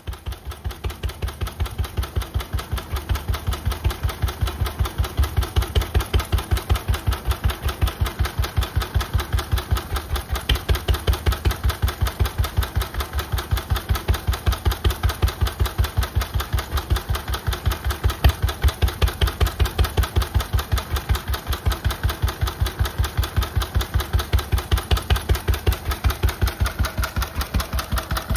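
Lister A single-cylinder stationary engine running through a tall upright exhaust pipe, with an even, rapid exhaust beat. It builds up over the first couple of seconds, then runs steadily.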